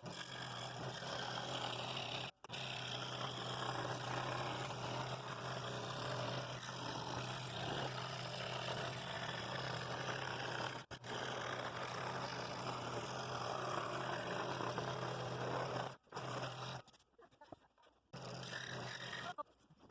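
Scroll saw running with a number seven blade, cutting through inch-thick hardwood: a steady rasping buzz over a low motor hum, broken off briefly several times.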